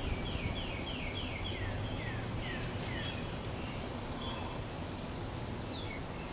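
A songbird singing a quick run of downward-slurred whistled notes, about three a second, then a few scattered chirps later, over a steady background of outdoor noise.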